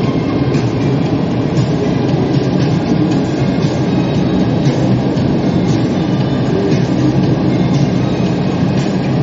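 Steady road and wind rumble inside a moving car.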